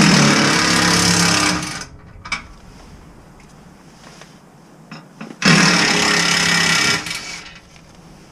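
Cordless power driver running in two bursts of just under two seconds each, one at the start and one about five and a half seconds in, backing out tight T40 Torx screws from a truck's underbody splash shield.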